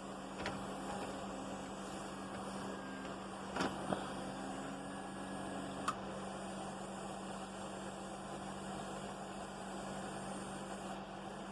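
Steady electric hum from a Tyco HO model train setup, with a few faint light clicks.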